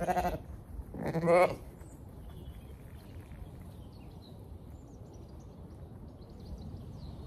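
Zwartbles ewe bleating twice: two short, wavering calls about a second apart, the second louder.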